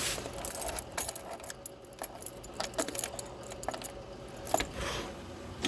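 Irregular light metallic clicks and jingling rattles from small metal objects being handled, over a faint steady hum.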